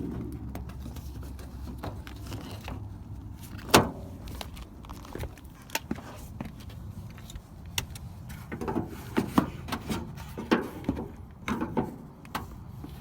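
Scattered clicks and knocks of a Honda Civic's exterior door handle being worked loose and pulled out of the door shell. There is one sharp knock about four seconds in and a run of knocks near the end, over a steady low hum.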